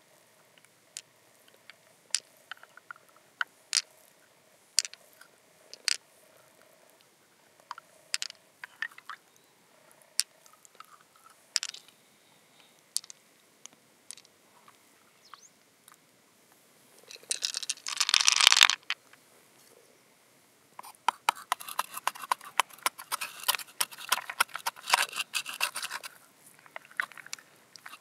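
Close-up handling of freshwater mussels and pearls: sharp single clicks every second or two as pearls are picked out and tapped together in the hand. A little past the middle comes a loud scraping burst, and near the end a long stretch of dense crackling and scraping as the mussel's shell and flesh are worked open.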